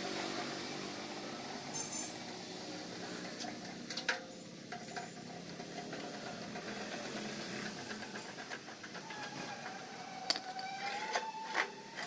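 Electric drill with a screwdriver bit turning the screws that fix the spider to a stainless-steel washing machine drum: a wavering motor whine in the last few seconds, with a few sharp metal clicks.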